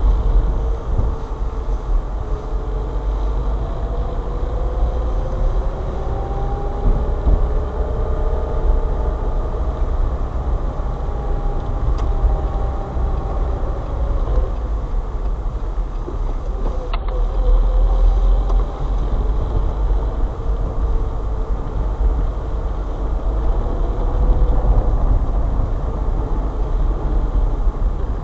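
Car driving slowly on slushy snow, heard from inside the cabin: a steady low engine and road rumble with tyre noise, the engine's pitch rising and falling gently with speed. There is one sharp click about two-thirds of the way through.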